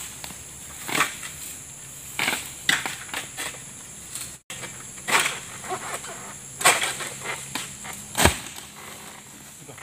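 Long-pole harvesting sickle (SBL M222A) working high on an oil palm: about six irregular rasping, crunching strokes as it cuts into the fronds and stalks, the last one heavier, over a steady high insect buzz.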